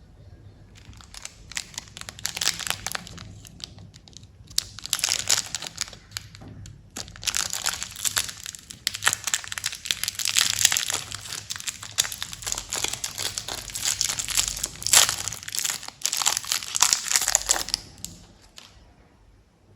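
Candy wrappers and packaging crinkling as they are handled and unwrapped. It starts about a second in, with short pauses about four and seven seconds in, and stops shortly before the end.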